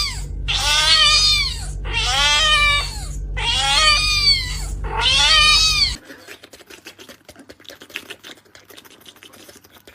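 A cat meowing loudly, four long drawn-out meows that rise and fall in pitch, with a low hum underneath. About six seconds in the sound cuts off abruptly to faint scattered clicks.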